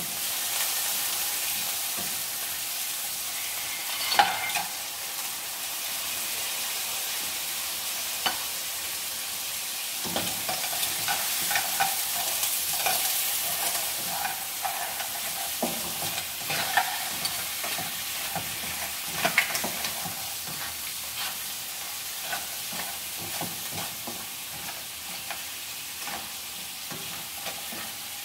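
Shrimp and scallops sizzling in a ceramic-coated frying pan while being stirred with a wooden spatula, which clicks and scrapes against the pan now and then, sharpest about four seconds in.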